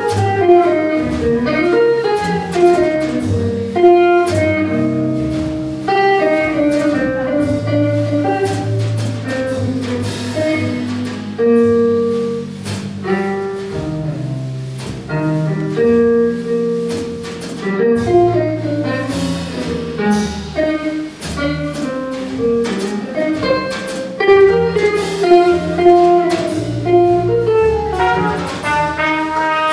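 Live jazz guitar solo: an electric guitar plays a running melodic line of plucked notes over double bass and drum kit.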